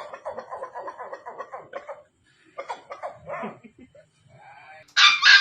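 A dog vocalizing: a rapidly pulsing, pitched call for about two seconds, then a couple of shorter calls, and a loud sharp bark near the end.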